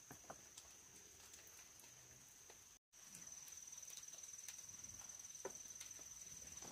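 Faint forest ambience: a steady high insect drone with scattered light ticks and taps. The sound cuts out completely for a moment nearly three seconds in, then returns a little louder.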